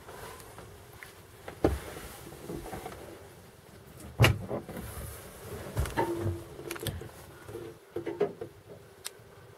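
Irregular wooden knocks and thumps from a barge's plank cabin door being handled and footsteps on wooden steps, the loudest thump about four seconds in, with a short creak around six seconds in.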